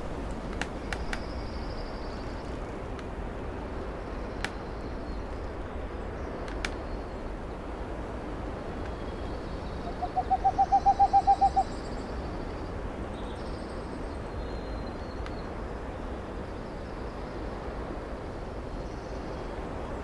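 Forest ambience with faint, high songbird calls. About ten seconds in, an owl gives a quick run of about a dozen hoots on one pitch, growing louder and lasting under two seconds.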